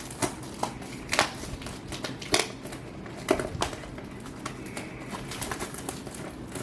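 Trading-card packaging being handled and torn open: plastic wrap and foil booster packs crinkling, with several sharp crackles.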